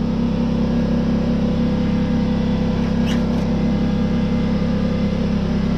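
Steady mechanical hum of a running motor, unchanging throughout, with a brief faint high squeak about three seconds in.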